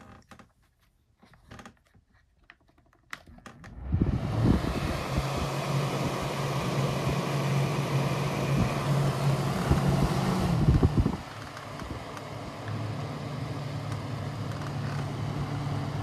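Lakewood Kool Operator Jr desk fan: a few handling clicks, then the motor starts about four seconds in and runs with a steady hum and rush of air. About seven seconds later it drops to a lower, quieter speed and keeps running.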